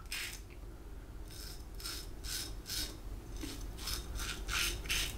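Double-edge safety razor (Focus Tritok Concave, Gillette 7 O'Clock Super Platinum blade) scraping through beard stubble under shaving lather in a quick series of short strokes, about three a second, that become clearer after the first second.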